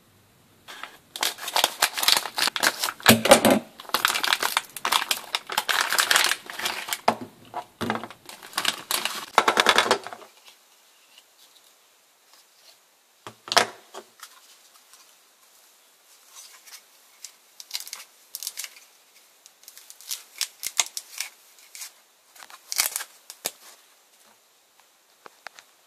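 Metallised anti-static bag crinkling and crackling loudly for about ten seconds as it is opened and handled. After that come sparse, lighter rustles and a sharp click as the ribbon cable and breakout board are taken out.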